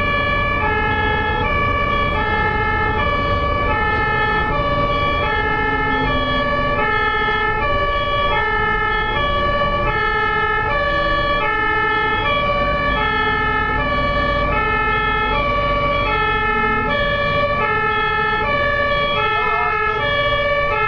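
German ambulance two-tone siren (Martinshorn) alternating steadily between a high and a low note, each held about half a second, over a low rumble of road noise.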